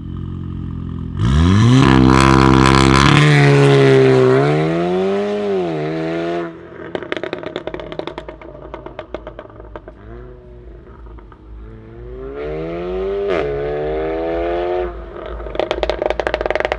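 Volkswagen Golf R Mk7's turbocharged four-cylinder, breathing through an Armytrix valved exhaust, accelerating hard. It rises in pitch and drops back at two upshifts before cutting off about six seconds in. A quieter stretch of sharp exhaust crackles follows, then a second rising acceleration from about twelve seconds, and a loud run of crackles near the end.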